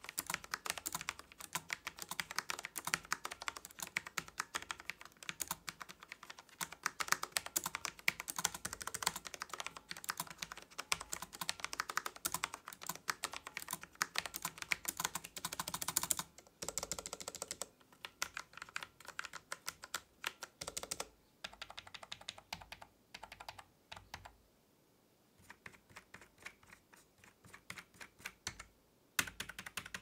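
Typing on a Corsair K70 MK2 Low Profile keyboard with Cherry MX Low Profile Speed linear switches, a sound test of the keys. Rapid, dense key clicks fill the first half, then the keystrokes become slower and sparser with short pauses, and quicken again near the end.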